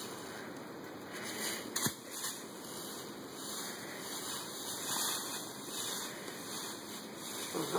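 Footsteps rustling and crunching through dry fallen leaves, with one sharp knock about two seconds in.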